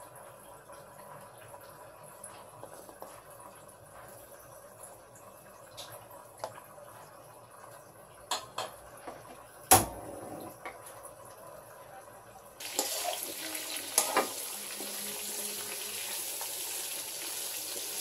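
Pork belly pieces frying in oil in a nonstick pan: a faint sizzle with a few light utensil clicks and one sharp knock about ten seconds in. About two-thirds of the way through, a much louder, steady sizzle sets in suddenly.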